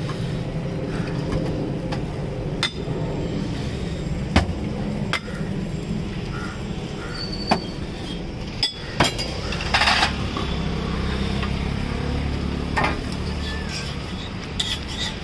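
Sharp metal clinks and taps of steel cooking and serving utensils, coming at irregular moments with a small cluster about two-thirds through, over a steady low rumble of background noise.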